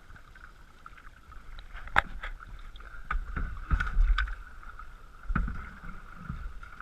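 Canoe paddling: irregular paddle splashes and knocks on the hull, several close together in the middle, over a steady high-pitched hum.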